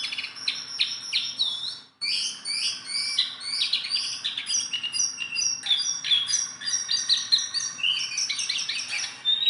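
A jongkangan songbird singing continuously: a fast, unbroken run of varied high chirps and short whistled slurs, some rising and some falling. The song breaks off briefly about two seconds in, then resumes.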